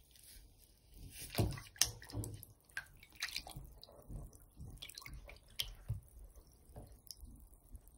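Water in a bathroom sink sloshing and splashing as a hand swishes through it, breaking up a bath bomb. It comes as a run of irregular splashes and drips, the loudest about a second and a half in.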